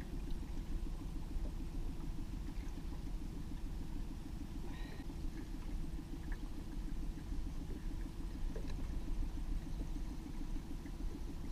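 Boat's outboard motor running steadily at trolling speed: a low, rapidly pulsing engine rumble.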